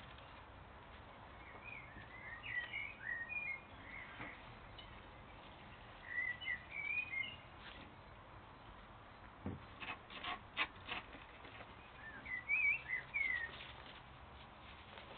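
A small songbird singing three short, quick warbling phrases spread a few seconds apart, over a faint outdoor background. A brief run of sharp clicks comes a little past the middle.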